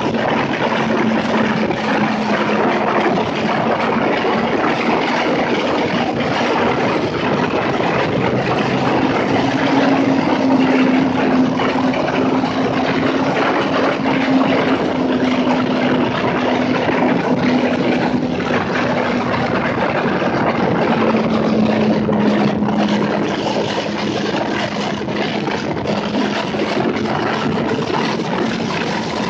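Sport motorcycle underway at speed: a steady rush of wind and road noise over the engine's note, which climbs a little about ten seconds in and eases back down in the second half.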